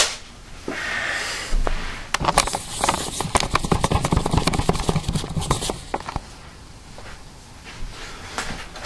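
Handling noise on a handheld camera: a rustle about a second in, then a dense run of short clicks and knocks for several seconds, easing off to a few scattered clicks near the end.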